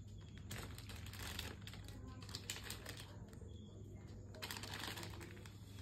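Plastic spice packet crinkling as it is cut open with a knife, in two spells of rustling, about half a second in and again near the end, with small ticks between.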